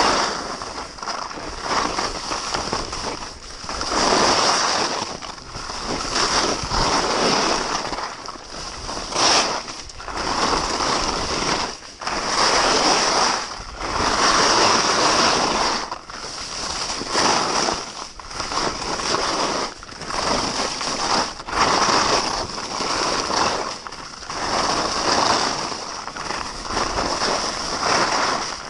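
Skis scraping and carving across hard-packed snow: a loud hiss that swells with each turn and dips between turns, every second or two.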